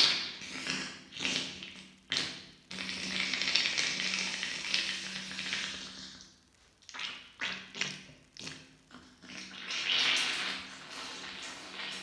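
A woman blowing a congested, mucus-filled nose hard into a tissue: several short sharp blasts, a long blow of about three seconds, more short blasts, then another long blow near the end.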